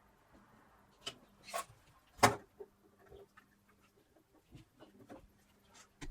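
Plastic clicks and knocks from a SteelSeries Arctis 7 headset's shell being prised apart and handled on the bench: a few separate sharp clicks, the loudest about two seconds in.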